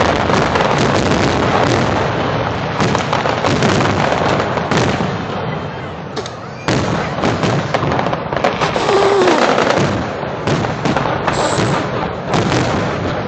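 Aerial fireworks going off in a dense run of overlapping booms and crackles. The barrage eases for a moment about six seconds in, then picks up again with a sudden loud burst.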